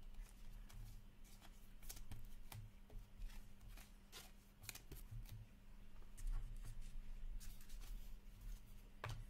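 Upper Deck Ice hockey trading cards handled by hand and a clear plastic pack wrapper pulled apart: faint scattered card flicks, ticks and plastic crinkles over a faint steady hum.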